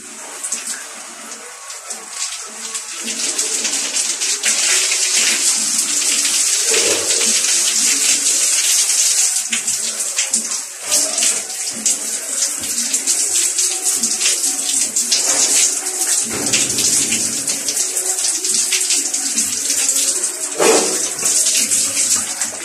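Shower spray running and splashing onto a head of hair as shampoo is rinsed out, a steady hiss that grows louder about three seconds in.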